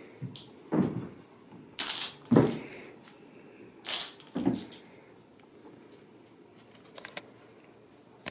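Several short rustling thumps over the first five seconds, then two faint clicks.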